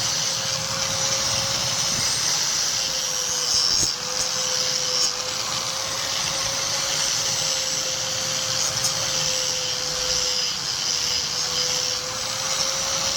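Electric grinder running steadily, with a constant whine that wavers slightly in pitch over a strong hiss, and a few faint clicks.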